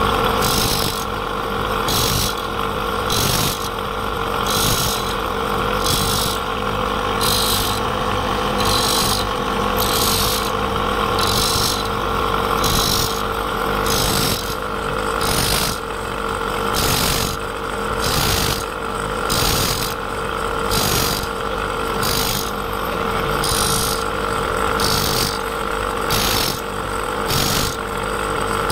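Spinning grinding wheel running with a steady hum while the teeth of a circular saw blade are pressed against it one after another to sharpen them, a short grinding rasp a little more than once a second.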